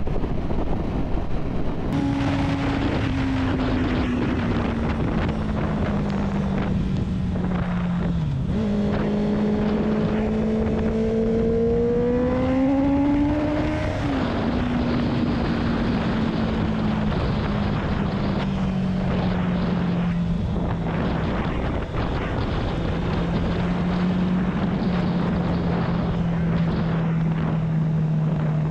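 A motorcycle engine running under way, with wind rushing past. About eight seconds in, the revs dip sharply and pick up again. They climb steadily as the bike accelerates, fall with a gear change about fourteen seconds in, then ease off slowly.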